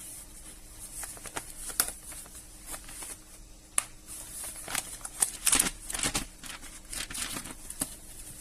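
Irregular clicks and crinkly rustling of something being handled close to the microphone, busiest a little past the middle.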